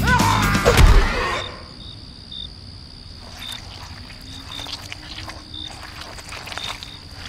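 A loud wailing cry over music cuts off about a second and a half in. Then night-time crickets chirp in short pulses, roughly a second apart, over a steady high insect trill.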